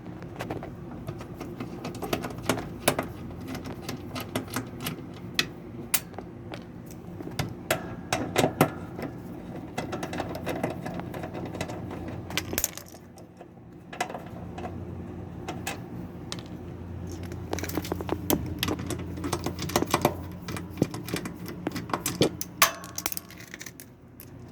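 A ratchet clicks and metal tools and parts clink in irregular runs as bolts on a washing machine are loosened, over a steady low hum.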